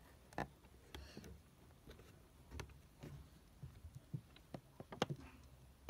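Handling noise from a die-cast toy car's box with a clear plastic window: scattered clicks, taps and crinkles of the packaging as it is moved and turned, the sharpest a little under half a second in and about five seconds in.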